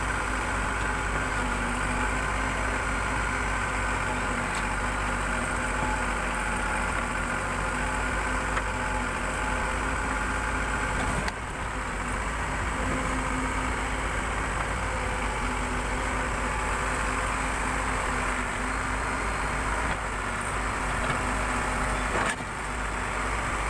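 Backhoe loader's diesel engine running steadily, with two brief abrupt dips in level, about eleven and twenty-two seconds in.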